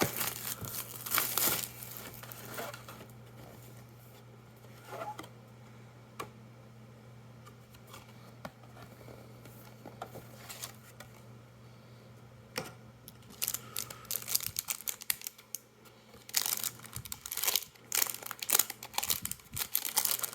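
Plastic wrapping on a cardboard booster display box crinkling and tearing as the box is unwrapped and opened, with scattered clicks and rustles. The crinkling is dense at first, quieter through the middle, and thick again for the last several seconds, over a steady low hum.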